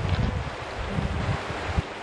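Wind buffeting the microphone in irregular low gusts, over the steady rush of a shallow river.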